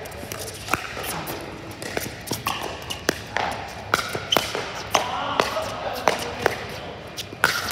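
Pickleball paddles hitting a hollow plastic ball in a fast rally, a sharp pop about every half second, ringing in a large indoor hall.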